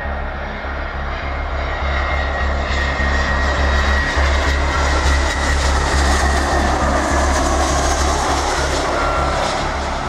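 Airbus A320-family airliner on final approach passing low overhead, its CFM56 turbofan engines giving a rushing roar that grows louder toward the middle, with a faint high fan whine sliding slowly down in pitch. A low pulsing rumble runs underneath.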